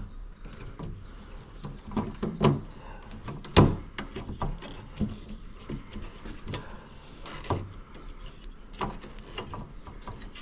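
Plastic car grille being handled and pressed into place on a Volvo V70 hood: irregular knocks and clicks of plastic against the hood, the loudest about three and a half seconds in.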